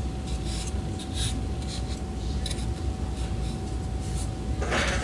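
Hands rubbing and scraping over a balsa wing frame and the paper plans beneath it: a run of short scratchy rustles, with a louder rustle near the end, over a faint steady hum.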